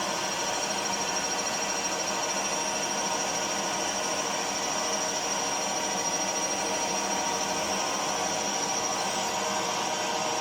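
Milling machine taking a pass with a carbide end mill through thin steel shim stock. It is a steady machining noise with a constant high-pitched whine.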